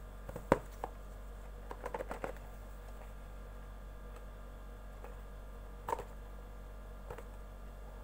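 Small cardboard earbuds box handled and turned over in the hands: scattered light taps and clicks, the sharpest about half a second in, a quick cluster around two seconds in, and two more later, over a steady low hum.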